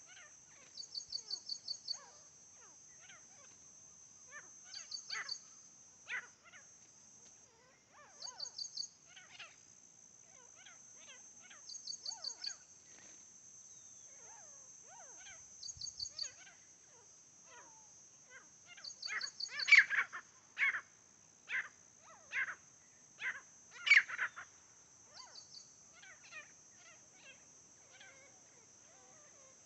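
Grey francolins calling: scattered short calls, then a louder run of about six calls from about 19 to 24 seconds in. Under them is a steady high hiss, with short rapid trills every few seconds.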